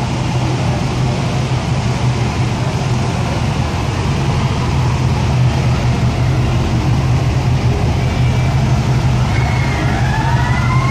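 Steady low hum of a lowrider car running as its hydraulic suspension lifts the front end. Near the end a rising wail starts up, like a siren.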